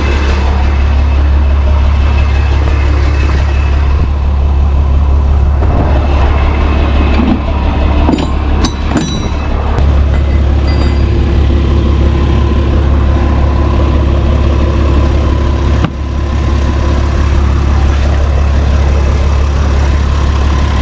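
Tow truck engine idling steadily with a constant low hum, and a few sharp clicks about eight to nine seconds in.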